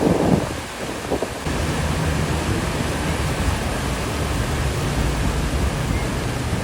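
Strong sea waves surging and breaking in a steady rush of noise. From about one and a half seconds in, a low rumble of wind on the microphone sits under it.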